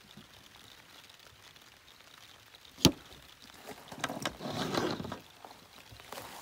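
Coiled plastic air hose and brass chuck fittings being handled on a plastic folding table: one sharp knock about three seconds in, then a second or two of rustling and sliding as the hose coils are moved.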